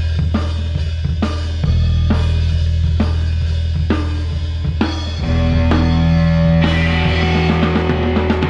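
Psychedelic rock band playing live: the drum kit leads over a steady bass line with an even beat. About five seconds in the drum hits drop back and sustained held notes come in, growing brighter near the end.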